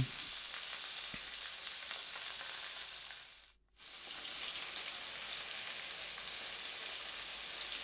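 Carrots, red onions and celery frying in hot oil in a non-stick pan: a steady sizzle as the vegetables roast in the meat drippings for a sauce base. The sizzle drops out briefly about halfway through, then resumes.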